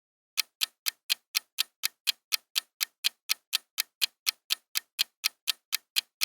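Clock-style ticking sound effect, even ticks about four a second, counting down the time to guess.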